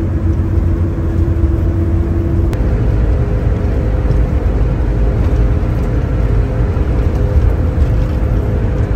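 Mercedes-Benz 1626 bus driving, heard from inside the cabin: a steady, loud low rumble of engine and road. A humming tone in it steps up in pitch about two and a half seconds in.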